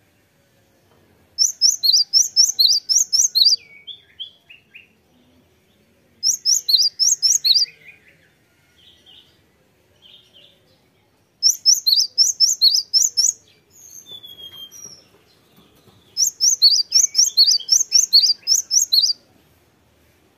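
Cinereous tit singing: four bursts of rapidly repeated high, sharp notes, each about two seconds long, with softer calls in the pauses between them.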